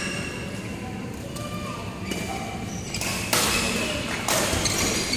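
Badminton rally: sharp racket strikes on the shuttlecock start about three seconds in, over chatter from players and onlookers in the hall.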